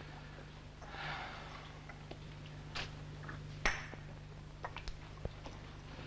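Light clinks and clicks of a china cup and saucer being handled, the sharpest a little past halfway, with a soft brief hiss about a second in, over a steady low hum.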